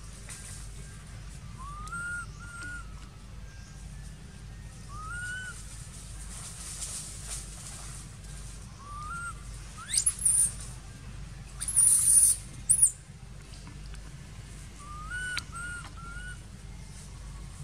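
Infant long-tailed macaque giving short, rising, whistle-like coo calls, repeated every few seconds, three in quick succession near the end. Two louder, very high-pitched squealing calls come about halfway through.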